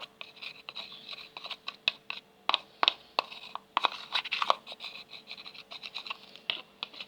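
Shampoo-and-salt slime mixture being stirred in a small container: irregular clicks and scrapes of the stirring utensil against the container, over a faint steady hum.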